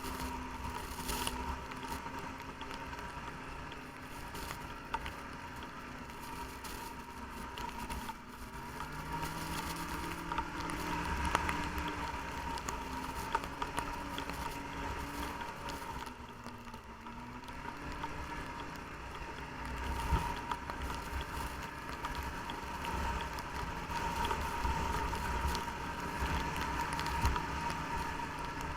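Snowmobile engine running while riding, its pitch rising about ten seconds in and dipping briefly around sixteen seconds as the throttle changes, over a steady high whine and a low rumble.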